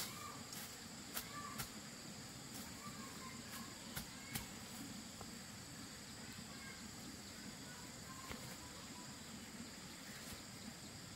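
Steady high-pitched drone of insects, crickets or cicadas, in the undergrowth, with several sharp snaps and crackles of leaves and stems being parted and pulled by hand, most of them in the first half.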